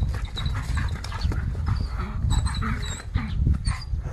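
A small dog making repeated short cries and panting sounds while it is being grabbed and pulled.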